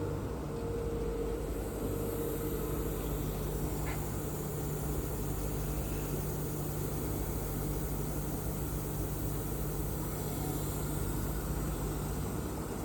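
Mecal MC 304 Pioneer CNC machining centre running under power: a steady mechanical hum with a faint high whine that drifts slightly in pitch.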